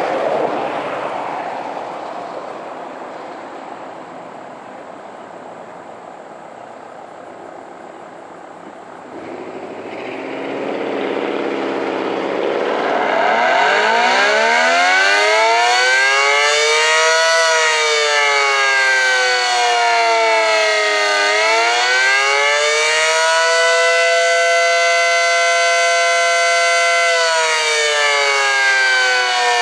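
Dual-tone ACA Screamer warning siren starting its Attack signal: it winds up about a third of the way in, then wails, its two tones rising and falling together with held peaks. Before it starts, a rushing noise fades away over the first several seconds.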